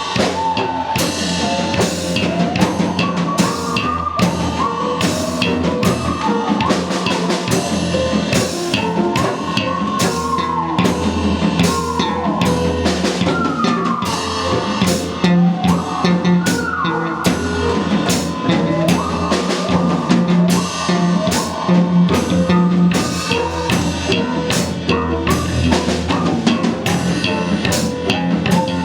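Live rock band playing an instrumental passage: a drum kit beating a steady rhythm over a bass line, with a lead instrument sliding up and down in pitch above them.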